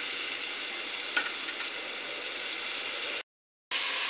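Masala paste frying in oil in an aluminium pot, a steady sizzle, with one light click of the steel stirring spoon against the pot about a second in. The sound cuts out for half a second near the end, then the sizzling resumes.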